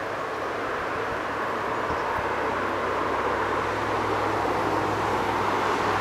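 Steady rushing noise with a low hum underneath, slowly growing louder.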